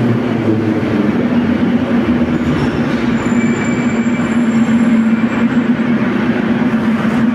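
Soviet-built 81-714/717-type metro train standing at or drawing up to the platform: a steady low electrical hum over a continuous rumble of noise, with a faint high whine about three seconds in.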